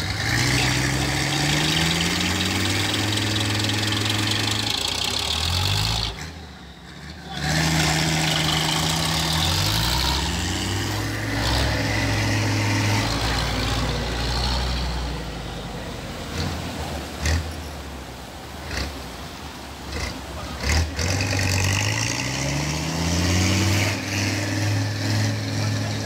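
Logging truck engine revving as it pushes through a river: the engine note climbs and falls again and again under load, and drops away briefly about six seconds in. Water rushes and splashes around the wheels, with a few sharp knocks later on.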